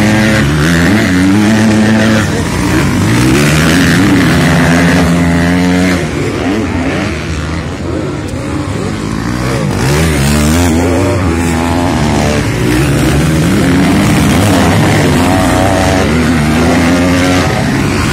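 Several motocross bikes' engines revving hard through a corner, their pitch climbing and falling again and again as riders open and close the throttle and pass one after another. The sound eases off for a few seconds near the middle, then builds again as a bunch of bikes comes through.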